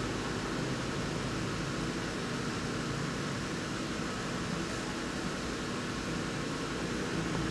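Steady background noise with a faint low hum, like a fan or air-conditioning, and no distinct events.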